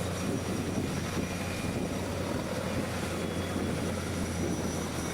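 Large stump-grinding machine running steadily: a constant low engine drone with a rushing, grinding noise over it.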